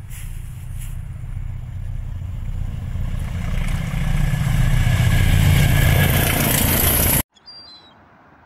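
Diesel locomotive hauling a train toward the listener, its engine rumble growing steadily louder, then cut off abruptly about seven seconds in. A few faint bird chirps follow.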